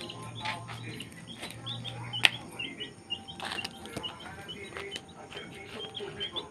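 Baby chick peeping over and over, short high cheeps several a second. A sharp click about two seconds in.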